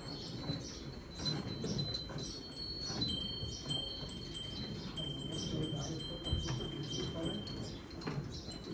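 Hand-milking into a steel pail: jets of milk squirt into the pail in quick alternating strokes, about two to three a second, each setting the metal ringing.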